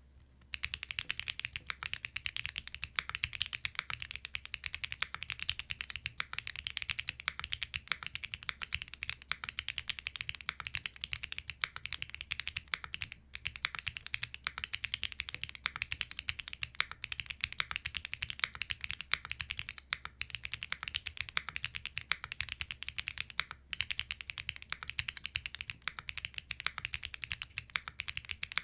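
Fast continuous typing on a QK75N mechanical keyboard with SWK Catmint boxed linear switches, a flex-cut PCB and flex-cut plate, and only case foam inside. It is a rapid, unbroken run of key clacks that starts about half a second in.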